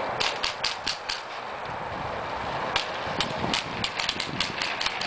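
Airsoft gun shots: sharp clicks in two irregular strings, the first in the opening second and the second, of about nine, running at roughly four a second over the last two seconds, over a steady outdoor hiss.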